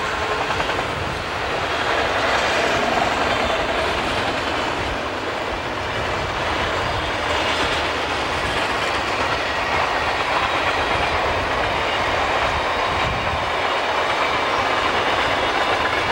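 Freight train of boxcars and tank cars passing at speed: a loud, steady rush and rattle of rolling freight cars.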